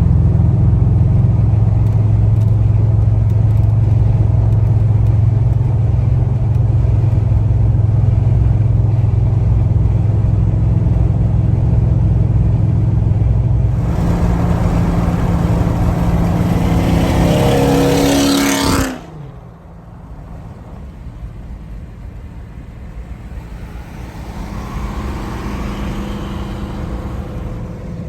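Chevrolet Impala SS's engine running under way with a steady drone, then rising in pitch as the car accelerates for a few seconds. It cuts off suddenly to a quieter, lower running sound.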